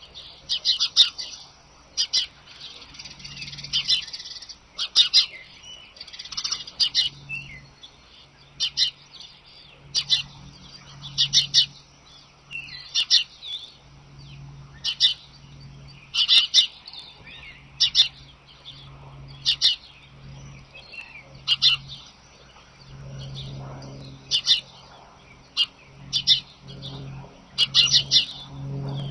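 Birds calling: short, high chirps that come every second or two, often as quick clusters of several notes.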